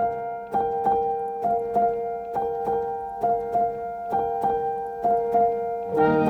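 Background music: a slow piano melody of single struck notes over a held note, with fuller accompaniment coming in near the end.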